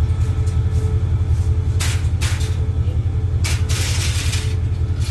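A stopped diesel passenger train's engine running at idle, a steady low rumble, with several short hissing bursts about two seconds in and again about three and a half seconds in.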